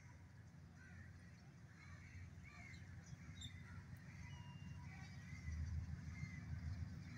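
Low rumble of a distant diesel-electric locomotive approaching, growing louder about five seconds in, with birds calling over it.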